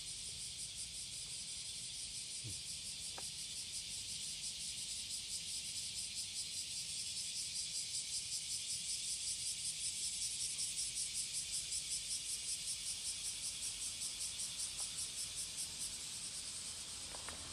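Cicada singing: a shrill buzz with a rapid, even pulse. It swells in loudness through the middle and eases off near the end.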